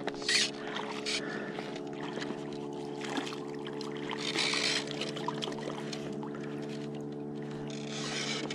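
A boat motor running with a steady, unchanging hum. Water washes briefly against the hull of an inflatable boat a few times, most plainly about four and a half seconds in.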